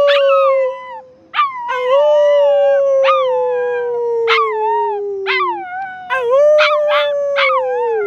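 Husky puppy howling: three long howls, each starting with a sharp upward yelp and then slowly sinking in pitch, the middle one about four seconds long, with short yips breaking in.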